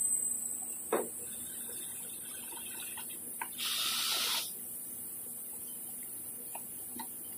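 Plastic car-bumper parts being handled and fitted: a knock about a second in, a few light clicks, and a short hissing rustle near the middle.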